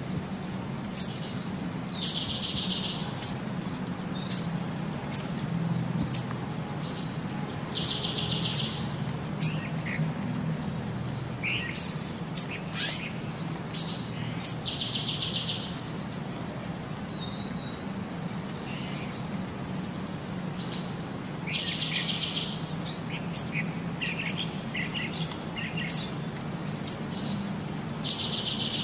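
Small birds chirping in short high notes, with a short buzzy trill recurring about every six seconds, over a faint low hum.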